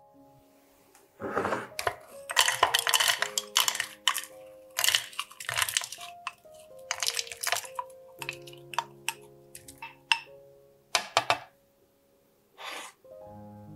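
Sea buckthorn berries poured into a plastic food-processor bowl, rattling against the plastic in a dense run of clatters for several seconds, with a couple of separate knocks later. Soft background music with steady notes plays underneath.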